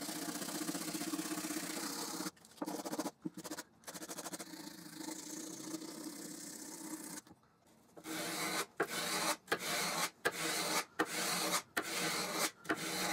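Steel plane cap iron scrubbed back and forth on 80-grit abrasive paper to scour off surface rust: a steady scraping with a few short pauses. After a brief silence about seven seconds in, a plane iron is rubbed on abrasive paper in separate back-and-forth strokes, about one and a half a second.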